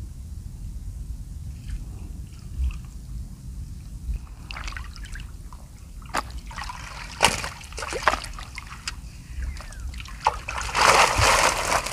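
Shallow water splashing and sloshing as someone wades into a fish corral: scattered splashes from partway through, building to a dense, louder burst of splashing near the end.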